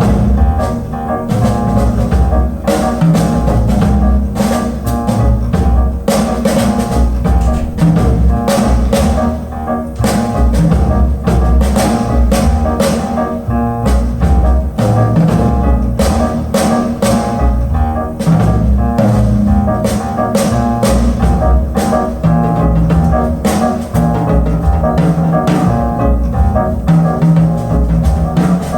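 Jazz recording with double bass and drum kit played back over a high-end hi-fi system of VAC amplification and Gershman Acoustics loudspeakers, with steady cymbal and drum strokes over a walking bass line.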